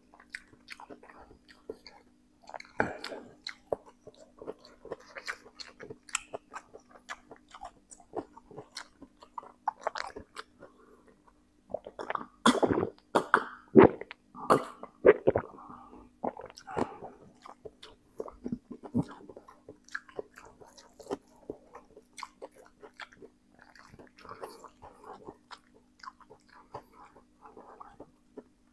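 Close-miked mukbang eating: chewing, smacking and slurping mouthfuls of spicy instant noodles, with a louder run of gulps and mouth sounds around the middle as he drinks from a glass mug. A faint steady hum sits underneath.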